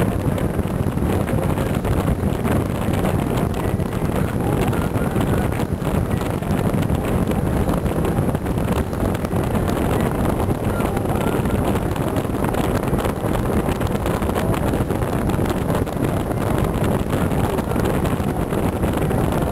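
Steady wind noise buffeting the microphone on the open bow deck of a boat: a continuous low rumbling rush with no separate events.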